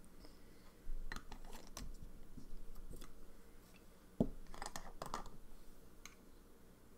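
Scattered light clicks and taps from handling, with a sharper knock about four seconds in and a few more clicks just after it.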